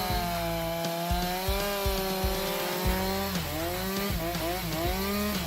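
Chainsaw engine running and cutting wood. Its pitch holds fairly steady, then dips and recovers several times in quick succession as the chain bites into the wood under load.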